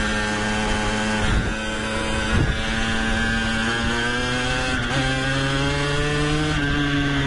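The two-stroke engine of a LEM LX4 mini motocross bike running under load while it is ridden, its freshly repaired clutch holding without slipping. The note dips briefly twice, then rises in pitch about five seconds in. Wind rushes over the helmet-mounted microphone.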